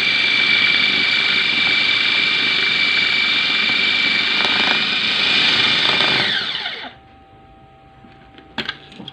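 Electric food processor running with a steady whine as its blade minces raw chicken meat. It is switched off about six seconds in and its pitch falls as it spins down. Two sharp clicks come near the end.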